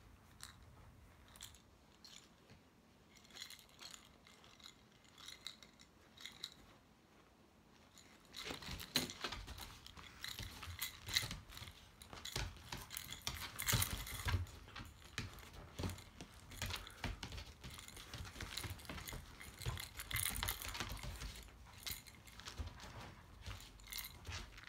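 A cocker spaniel tugging and spinning with a large stuffed toy on a wooden floor: claws clicking and scrabbling, with scuffs and knocks as the dog and toy move. It is faint and sparse at first, then gets much louder and busier about eight seconds in as the play turns rough.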